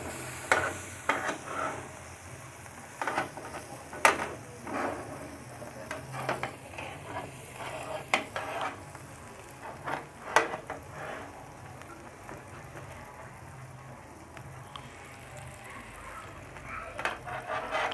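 Margarine-spread bread slices toasting in a non-stick frying pan with a light sizzle, and a utensil scraping and tapping against the pan. The scrapes and taps come through the first ten seconds or so, then the sizzle goes on alone.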